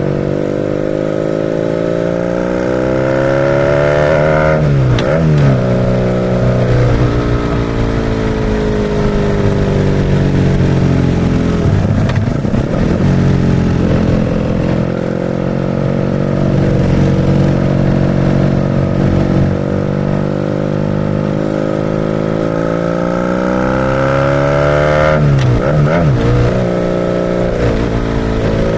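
BMW R nineT's boxer-twin engine pulling through the gears on the move. Its pitch climbs steadily in each gear and drops at gear changes, about five seconds in, midway, and again near the end.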